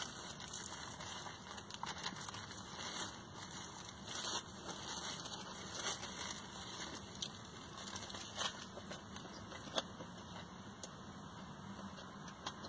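Plastic wrap around a sub sandwich crinkling and crackling irregularly as it is handled and peeled back.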